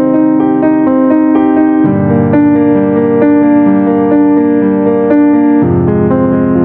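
Piano music: held chords, changing about two seconds in and again near the end.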